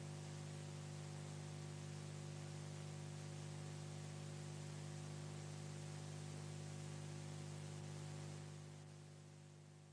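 Steady electrical hum with a low hiss on the film's soundtrack, no voices. The hum fades down over the last second or so.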